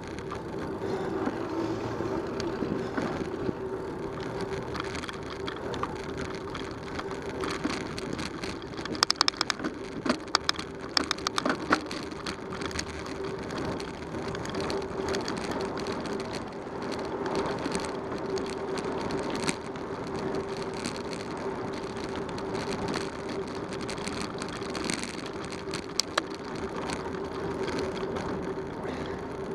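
Bicycle rolling along a paved road, heard from a camera mounted on the bike: steady tyre and wind noise with a steady hum, and a run of sharp rattling clicks about nine to twelve seconds in.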